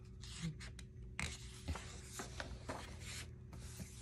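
Paper rustling and rubbing as a coloring book's page is turned and smoothed flat by hand, with several short crinkles.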